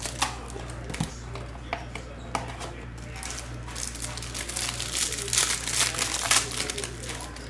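Foil wrapper of a Topps Chrome trading-card pack crinkling as the pack is handled and torn open, the crinkling loudest about five to six and a half seconds in.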